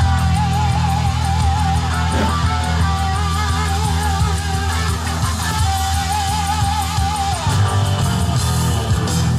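Guitar-driven rock music playing back from reel-to-reel tape on an Akai 4000DS Mk II deck during a test play, with a sustained wavering lead line that drops out and comes back several times over a steady bass.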